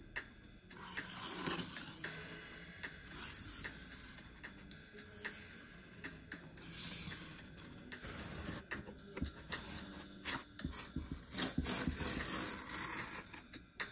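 Felt-tip marker rasping across corrugated cardboard in several long strokes as lines are ruled along a metal ruler, then a utility knife scoring the cardboard along the ruler in quicker, louder strokes near the end.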